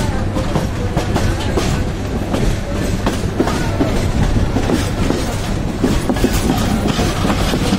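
Passenger train running steadily, its wheels clattering on the rails with a continuous rumble, heard from an open carriage door or window.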